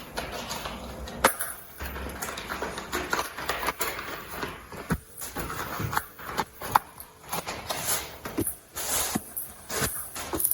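Crinkling and rustling of packaging with scattered clicks and knocks as parts are handled.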